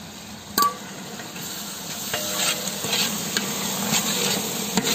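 A sharp metal clink about half a second in, then a long metal ladle stirring thick onion-tomato masala in a large aluminium pot, scraping and sizzling.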